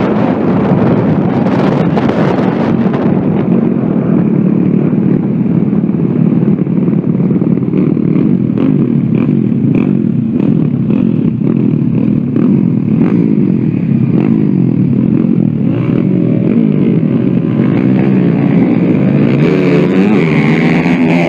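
Small motorcycle engines running and revving, their pitch wavering up and down as bikes move, with a rising-then-falling rev near the end.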